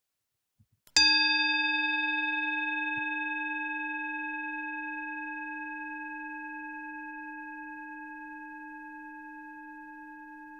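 A singing bowl struck once about a second in, ringing on with a clear tone that fades slowly with a slight pulsing. It is the signal to begin a mindful breathing practice.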